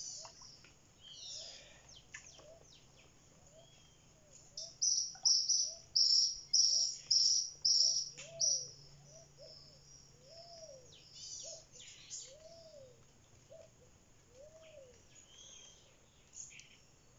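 Birds calling: a run of about eight loud, high, sharp notes, roughly two a second, comes in about four seconds in and stops near the middle. Under it a softer, low rising-and-falling call repeats about once a second, with scattered chirps throughout.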